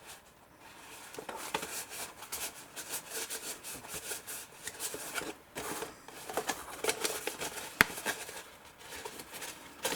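Paper pieces being handled and folded: irregular rustling and small taps, with one sharp click about eight seconds in.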